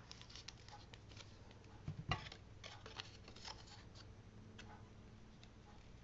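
Faint paper handling: a small cardstock panel is set onto a card front and pressed down by hand, with scattered light taps and rustles and a louder tap about two seconds in.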